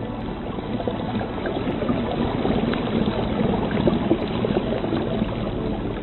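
Running water: a steady, noisy rush with many small crackles.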